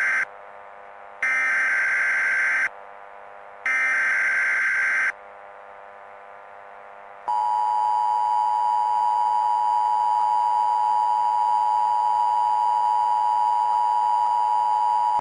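NOAA Weather Radio emergency alert tones: the end of one SAME header data burst, then two more bursts of about a second and a half each, evenly spaced. After a gap of about two seconds comes the steady 1050 Hz warning alarm tone, held for about eight seconds. The tones announce that an emergency message follows.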